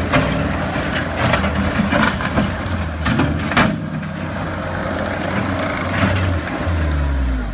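Caterpillar 246B tracked skid-steer loader's diesel engine running steadily while it moves over dirt, with several sharp clanks and scrapes from the tracks and the lowered bucket. The loudest clank comes about three and a half seconds in.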